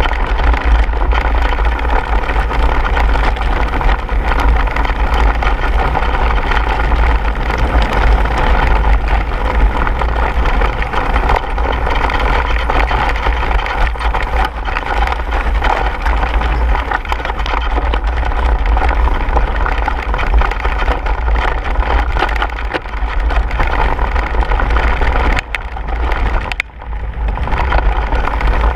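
Mountain bike riding fast over a rocky gravel trail: wind rumbling on the action camera's microphone, with tyres crunching over stones and the bike clattering. Briefly quieter near the end.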